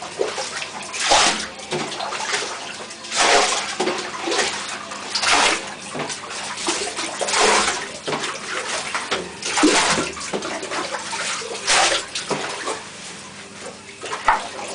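Floodwater indoors sloshing and splashing in strong surges about every two seconds, over a steady rush of running water.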